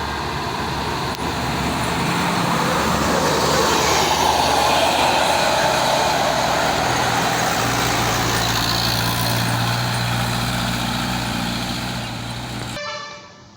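A medium-size diesel tour bus driving past close by, its engine note and road noise swelling to their loudest about four to six seconds in, then fading. The sound drops away abruptly near the end.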